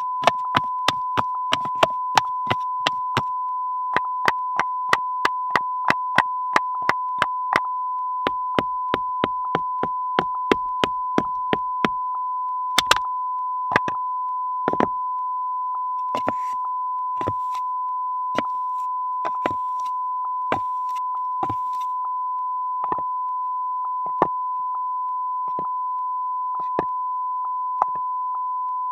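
Wooden geta clogs clacking step by step: brisk, even steps about three a second for the first dozen seconds, then slower, spaced steps. A continuous steady beep tone runs under the steps as a sample watermark.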